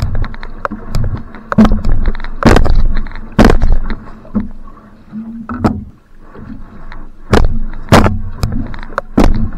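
Paddle strokes of a single outrigger canoe (va'a) at sprint pace: the blade catching and splashing in the water about once a second, with water noise between strokes.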